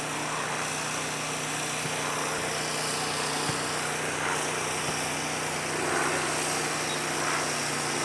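A small engine running steadily, heard as a constant low hum under an even outdoor hiss.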